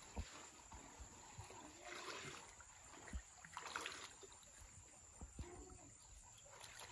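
Faint sloshing and trickling of pond water stirred by people wading and working hand-held push nets on poles, with a few dull low thumps.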